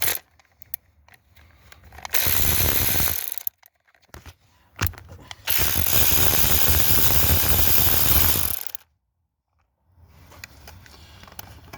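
Cordless power ratchet running in bursts, a short one of about a second and then a longer one of about three seconds, spinning bolts out of the engine, with clicks of tool and metal between.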